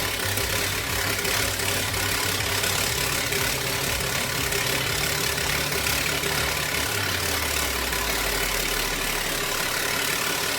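An engine running steadily under a loud, even hiss, with a low hum that slides down in pitch from about seven seconds in.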